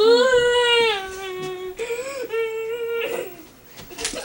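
A person's high voice holding two long, drawn-out notes without words, the first rising slightly and then sliding down, the second held steady. It breaks off about three seconds in, and a sharp click follows near the end.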